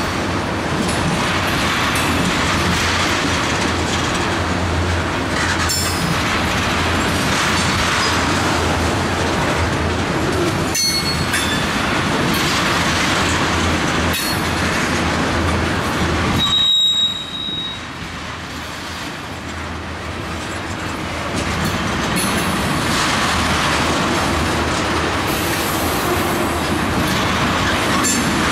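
Railroad tank cars rolling past, with steady steel-wheel rumble and occasional clicks over the rail joints. A short high wheel squeal comes about 17 seconds in, and the train sound is a little softer for a few seconds after it.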